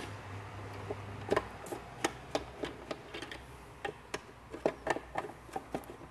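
Irregular clicks and light knocks of an electrical control enclosure being handled and opened up, with a faint low hum that fades out in the first second.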